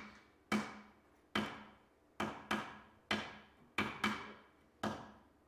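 Capuchin monkey banging a walnut down on a hollow wooden platform to crack it: about eight sharp knocks at an uneven pace, each ringing briefly.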